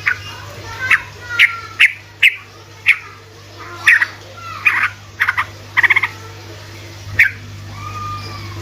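Yellow-vented bulbul (trucukan) calling a rapid 'ropelan' song: a run of sharp, short chirps roughly every half second, with a quick rattled string of notes about six seconds in and a few sliding whistles. A steady low hum runs underneath.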